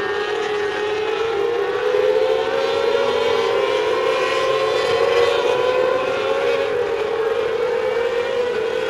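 Several mini sprint race cars running flat out around a dirt oval, their engines making a sustained high whine that drifts slowly up and down in pitch as the cars go through the turns.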